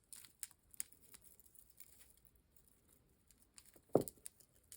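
Faint scattered clicks and light clinks of small jewelry pieces being handled and sorted, with one soft thump about four seconds in.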